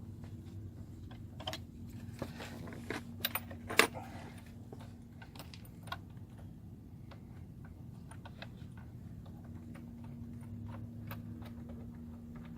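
Scattered small metallic clicks and clinks of bolts and hand tools being handled while starting the intake manifold bolts, with one sharper clink about four seconds in. A steady low hum runs underneath.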